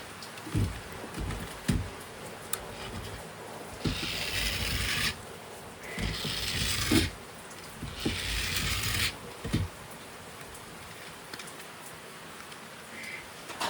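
Toys and packaging being handled: a few soft knocks, and three rasping, scraping bursts of about a second each in the middle.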